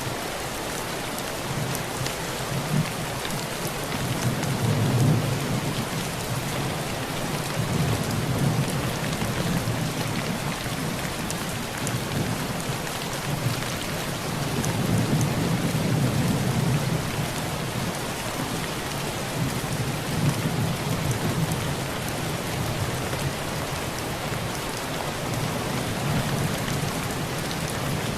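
Heavy rain falling steadily on a tin roof, a constant patter of drops. Low rolls of thunder swell and fade several times.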